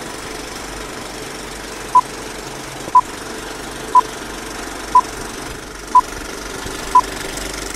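Old-film countdown leader sound effect: a steady film-projector clatter with crackle under a short, high beep once a second, six beeps in all, starting about two seconds in.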